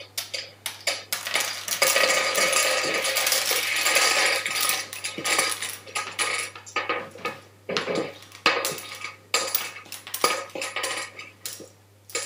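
Scrabble tiles clattering on a wooden tabletop as they are gathered up and dropped into a cloth bag. A dense rattle runs for several seconds from about a second in, then comes a string of separate clicks as single tiles are picked up and put in.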